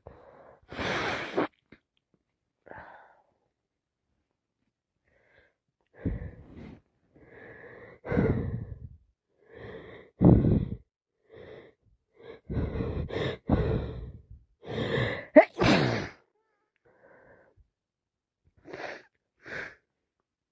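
A woman sneezing over and over in fits, with heavy, wheezy breaths between the sneezes. A lull of a few seconds comes early on, and the loudest, sharpest sneeze comes about fifteen seconds in. She suspects the fits mean another cold coming on.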